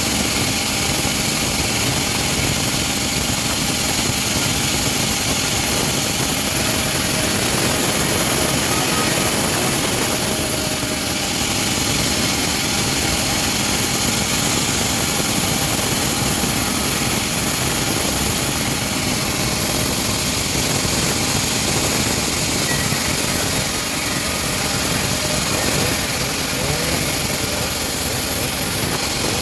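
Homemade engine-driven bandsaw mill running steadily at full noise, with a dense, even whine and rush that does not let up.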